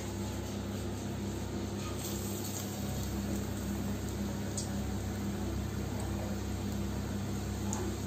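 Batter-coated potato slices frying in hot oil in a pan: a steady sizzle with a few sharp crackles, over a constant low hum.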